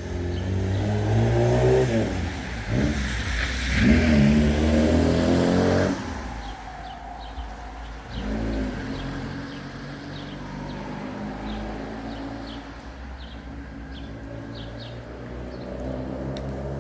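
A car engine revving and accelerating, its pitch rising and falling, loud for about the first six seconds, then a quieter engine hum running on.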